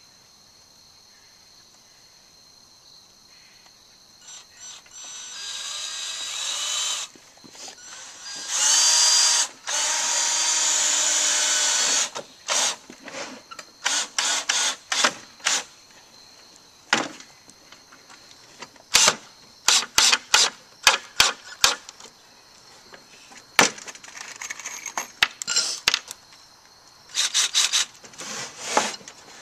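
Cordless drill driving screws into 2x4 lumber: the motor whirs in two runs, spinning up with a rising whine and holding under load for a few seconds. After that come a long series of sharp knocks and taps on the wooden frame, with quick runs of strikes near the middle and near the end.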